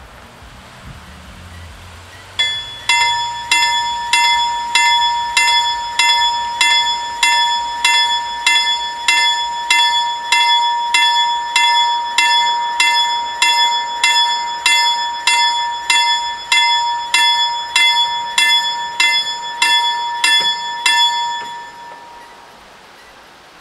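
Level crossing warning bells start ringing about two seconds in, a fast, even run of clanging strokes, about two a second, warning that a train is approaching. They stop a little before the end, when the barriers are down.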